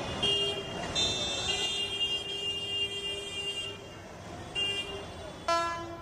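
Vehicle horns honking in road traffic: a short toot, then one horn held for nearly three seconds, another brief toot, and a different, lower horn near the end, over a steady hum of traffic.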